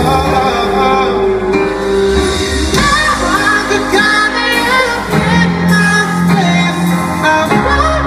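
A live pop band with a solo singer, heard from the crowd in a large hall. The singer holds and bends long notes over sustained chords; the bass drops out for a couple of seconds past the middle and comes back in near the end.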